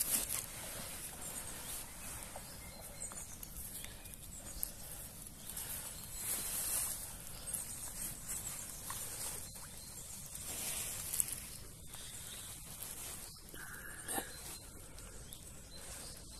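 Irregular rustling of a wet nylon carp sling being carried and handled on the bank and lowered into the water, with a few light clicks.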